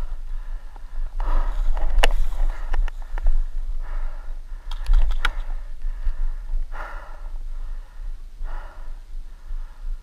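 A paintball player's breathing close to the microphone, a breath every one to two seconds, with a sharp click about two seconds in and a quick run of clicks around five seconds in. A low wind rumble sits underneath.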